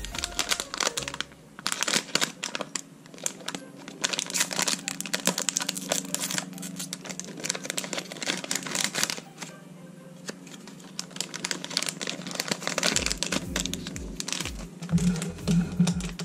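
A foil blind-bag toy wrapper crinkling and tearing as hands open it. Background music with a beat comes in near the end.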